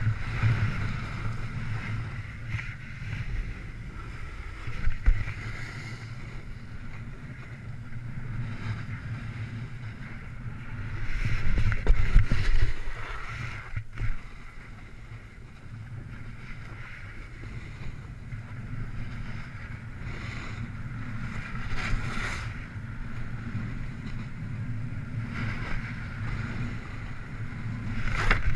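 Wind buffeting the microphone of a camera speeding down a ski slope, over the steady hiss and scrape of edges carving packed snow. It swells loudest a little under halfway through, during a faster or harder-carving stretch.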